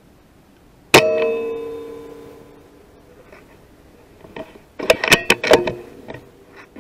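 A .177 BSA Scorpion PCP air rifle fires once about a second in: a sharp crack with a metallic ring that dies away over about two seconds. A few seconds later comes a quick cluster of metallic clicks as the bolt is worked to reload.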